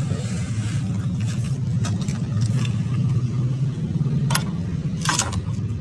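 A steady low engine-like rumble, with a few sharp plastic knocks and clicks near the end.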